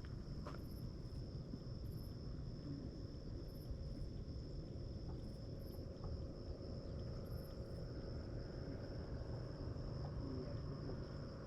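Insects trilling in a steady, unbroken high note, with faint higher chirps now and then over a low rumble of wind on the microphone.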